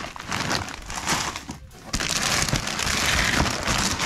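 Plastic crisp packets crinkling and rustling as they are handled and pulled out of a cardboard box, with a brief lull near the middle.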